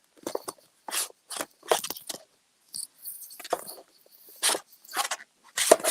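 Plastic embellishment packages crinkling and rustling as they are handled, in a string of irregular short crackles and clicks.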